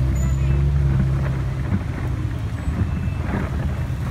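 Engine of the vehicle being ridden in, running with a steady low hum, heard from the open back along with wind and road noise. The hum is strongest in the first second and a half, then grows rougher and noisier.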